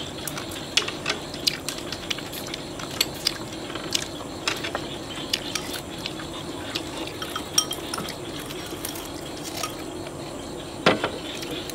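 Chopsticks clicking and clinking against porcelain rice bowls and plates as several people eat, a scattered run of small taps with one louder knock near the end.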